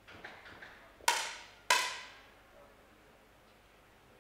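Two sharp air rifle shots about half a second apart, each trailing off in a hall echo, after a few faint clicks.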